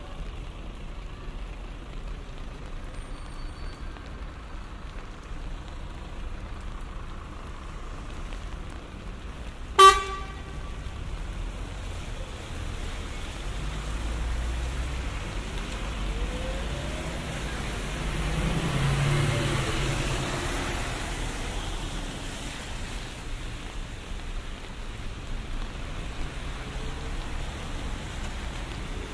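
Steady city street traffic. A single short vehicle-horn toot, the loudest sound, comes about a third of the way in, and a vehicle passes closer, swelling and fading, about two-thirds of the way through.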